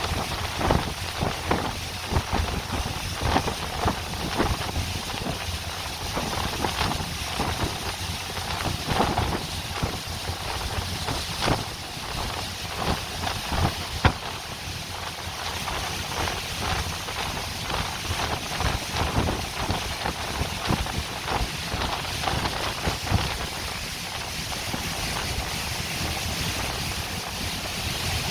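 Wind buffeting the microphone on a tour boat out on open water, with the rush of water along the hull beneath it, in uneven gusts. A single sharp tap stands out about halfway through.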